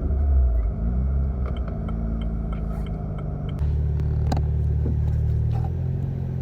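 BMW 335's exhaust drone while the car is driven. The revs fall off about a second in, then hold steady, and the low drone gets louder again about three and a half seconds in.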